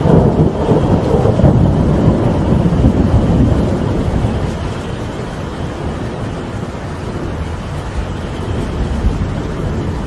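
Rolling thunder over steady rain: a loud low rumble breaks in suddenly and dies away over about five seconds, leaving the rain falling.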